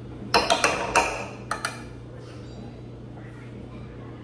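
A quick run of about six sharp clinks and knocks of hard objects striking each other, bunched in the first two seconds.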